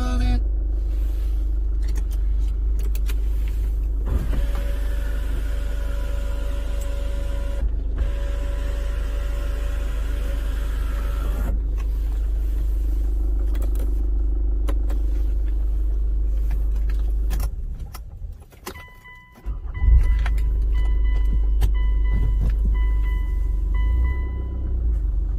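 Cabin of a 2007 Hyundai Tucson with a steady low rumble from the running car. An electric motor whines in two runs of about three seconds each in the middle, as the power glass moves. Near the end the rumble drops out for a moment, then a repeating electronic chime beeps for several seconds.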